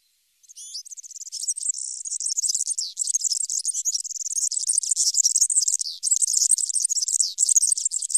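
European serin singing: a long, rapid stream of high, thin notes that starts about half a second in, with brief breaks near three and six seconds.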